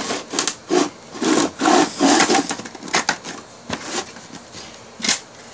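Toy train set pieces being handled and fitted together: irregular clicks, knocks and scraping rubs, busiest in the first couple of seconds, with a single sharp knock near the end.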